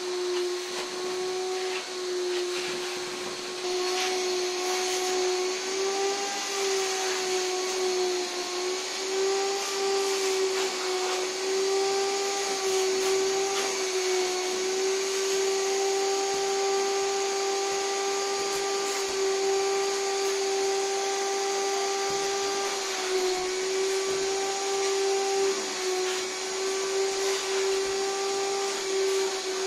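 Stainless-steel wet-and-dry canister vacuum cleaner running steadily: a constant motor whine with a slight waver in pitch now and then, over a rushing hiss of air.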